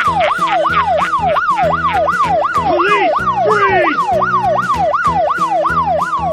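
Police car siren wailing in a fast yelp, its pitch sweeping up and down about three times a second. Children's background music with a steady beat plays underneath.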